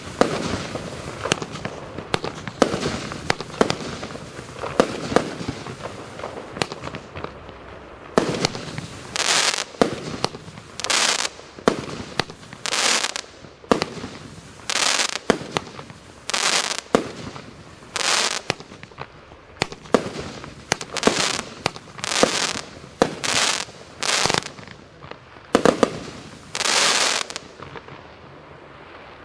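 238-shot compound fireworks cake firing. First comes a rapid run of sharp pops and bangs. Then, from several seconds in, a string of short rushing bursts roughly one a second, until the cake finishes a couple of seconds before the end.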